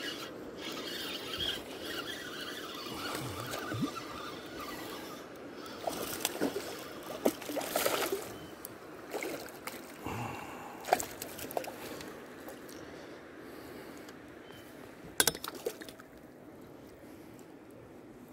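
Water sloshing and splashing around an inflatable boat, with scattered sharp clicks and knocks from handling a spinning rod and reel while a hooked bass is brought up to the surface.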